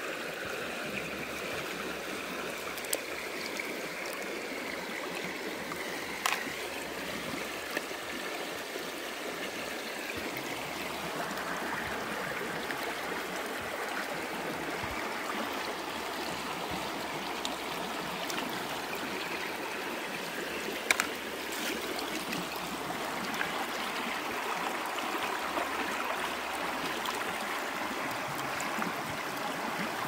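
Shallow stream of water trickling and gurgling steadily over rocks and pebbles, with a few sharp clicks scattered through, the loudest about two-thirds of the way in.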